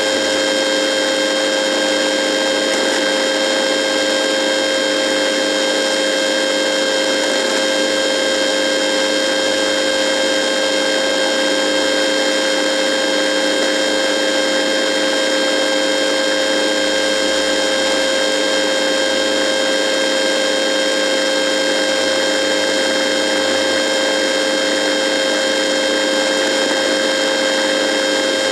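Radio buzzing: a loud, unchanging electrical buzz of several steady whining tones over a hiss, with no change in level.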